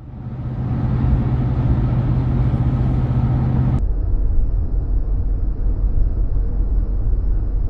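Steady road and engine noise inside a moving car, with a low hum. About four seconds in it cuts abruptly to a rougher rumbling noise without the hum.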